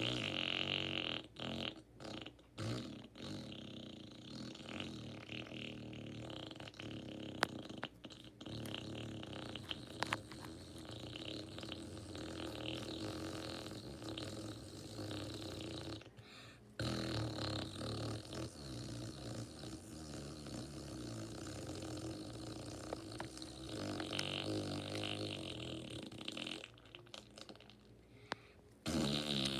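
A person making a long, drawn-out fake fart noise, a continuous buzzy raspberry. It breaks off briefly a few times in the first seconds, pauses once about halfway through, then carries on until near the end.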